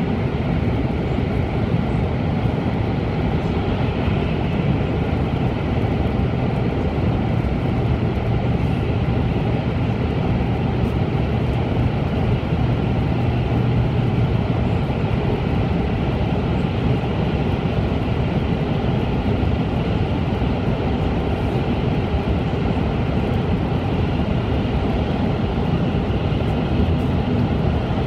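Running noise of an N700-series Shinkansen at speed, heard from inside a passenger car: a steady, loud rumble with a low hum.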